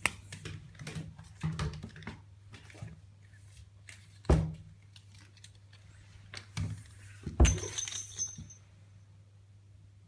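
Cardboard loo-roll ball cat toy with a small bell inside, knocked and tumbling across a tiled floor: a scatter of light clattering knocks, with the bell jingling briefly after a louder knock about three quarters of the way in.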